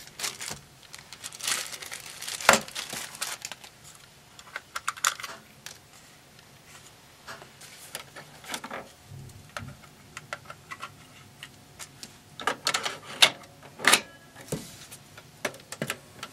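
Irregular clicks, taps and small rattles of hands working on a boombox, coming in several short clusters.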